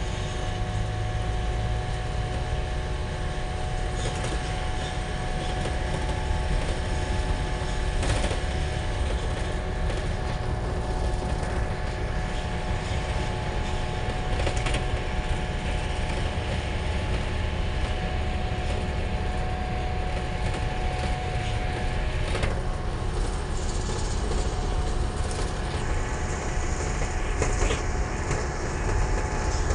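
Cabin noise of a moving Isuzu minibus: steady engine and road rumble with scattered small rattles and clicks from the body. A steady whine runs along with it and stops about three quarters of the way through.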